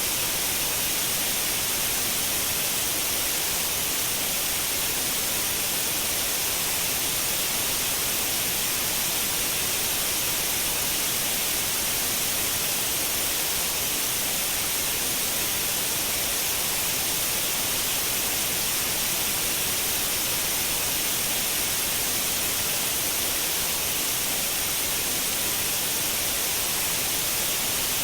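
Steady white noise: an even, unbroken hiss, brightest in the treble, with no change in level.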